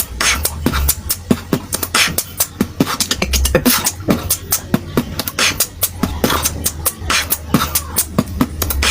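Human beatboxing: a fast, busy rhythm of sharp mouth-made clicks and percussive hits, with a low bass hum that comes and goes.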